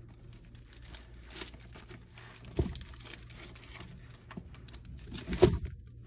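Handling noise from a quilted leather flap bag being opened and its contents taken out: rustling and crinkling of plastic wrap and leather, with two dull thumps, one about two and a half seconds in and a louder one near the end.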